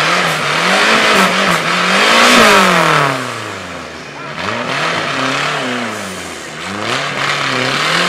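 Off-road buggy engine revved hard in about three surges, rising and falling in pitch, the first and loudest peaking about two and a half seconds in, as the buggy's spinning wheels claw it up out of a mud pit.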